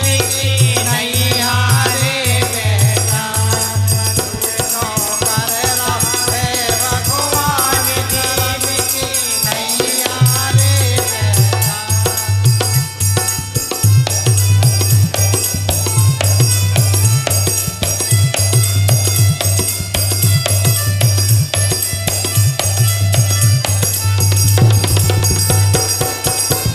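Bundeli folk bhajan music with no singing: harmonium playing the melody over a steady dholak beat, with a jingling rattle-type hand percussion keeping time.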